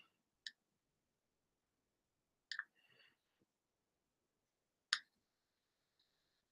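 Near silence with three faint, brief clicks, about two seconds apart, the last the loudest: a dry-erase marker tapping and stroking on a whiteboard.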